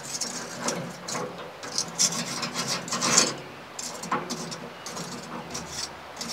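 Lump charcoal being raked and spread with a metal tool in the side firebox of a Char-Griller Smokin' Pro smoker: irregular scraping strokes of coals against the steel, loudest about two and three seconds in.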